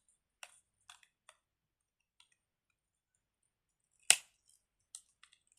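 Loose-fitting plastic pieces of a fidget toy clicking as they are handled: a few light clicks, then one sharp snap about four seconds in, and two more light clicks near the end.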